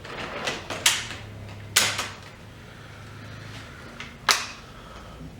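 Plastic clips of a Lenovo G510 laptop's casing being pressed and snapped into place: several sharp clicks, three of them loud, the last one a couple of seconds after the others.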